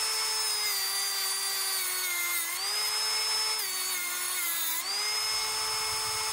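Cordless Sharpie tungsten grinder with a Milwaukee 12-volt motor running with a steady whine. Its pitch sags twice, for a second or so each time, and then recovers, as a tungsten electrode is ground on its diamond wheel.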